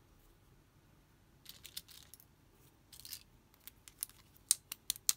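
Small plastic toy makeup pieces being handled by hand: short rustles, then a run of sharp plastic clicks and taps, the loudest in the last second.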